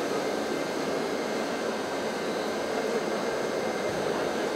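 Steady din of a crowded indoor hall: a dense haze of many distant voices and background noise, with no clear words or single events.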